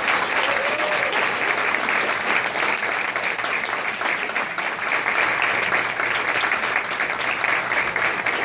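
Audience applauding steadily, a roomful of people clapping to welcome a speaker to the stage.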